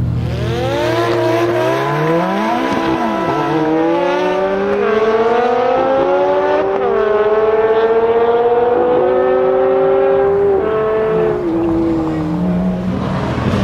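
BMW M6 coupe's V10 with an Eisenmann race exhaust launching at full throttle from a standstill, its pitch climbing hard and dropping back at each upshift as it pulls away, with a second car's engine accelerating alongside.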